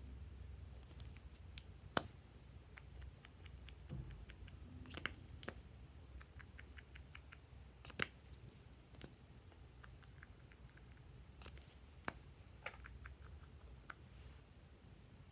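Faint, scattered clicks and light taps of small rubbery octopus toys knocking against each other as they are handled, with a few sharper clicks about 2, 8 and 12 seconds in.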